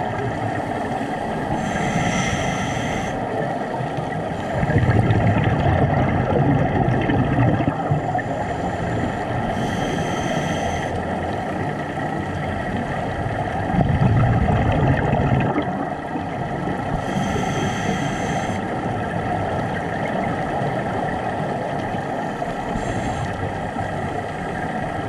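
Scuba regulator breathing heard underwater: three hissing inhalations with a faint whistle, about seven to eight seconds apart, each followed a few seconds later by a low rumble of exhaled bubbles, over a steady underwater wash.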